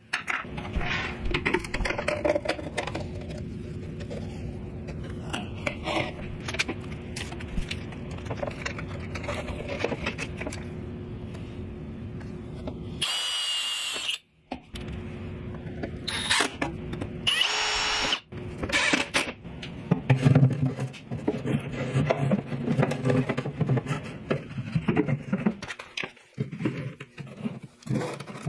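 Cordless drill running into a galvanized sheet-metal duct in two short whining bursts near the middle, amid scraping and clanking as the metal duct pieces are handled and fitted.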